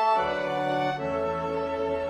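Slow background music of long held chords, changing chord twice, with a low bass line coming in just after the start.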